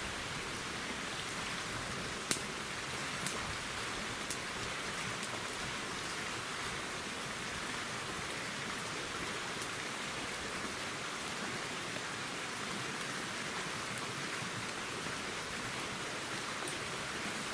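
Steady rushing of a small stream, with a few sharp faint clicks in the first few seconds.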